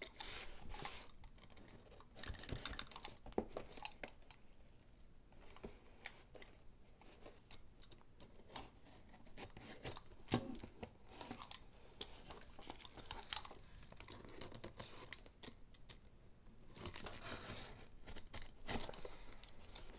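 Utility knife cutting through packing tape and paper wrapping on a cardboard box: faint, irregular scraping and tearing with small clicks, and paper crinkling as the box is handled.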